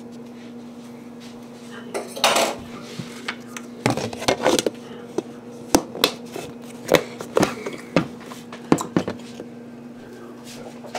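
A metal fork clinking, tapping and scraping against a dish, about a dozen sharp clicks over several seconds, as butter is scooped up and dropped onto a baked potato. A steady low hum runs underneath.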